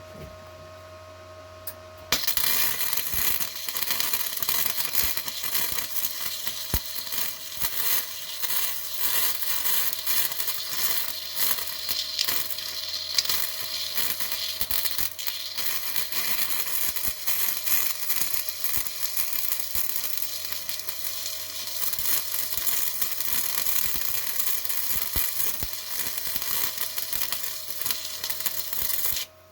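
Electric arc welding a bead onto a mower deck gauge wheel arm: a dense, steady crackling sizzle that starts about two seconds in and cuts off just before the end. Before the arc strikes there is a quieter steady hum.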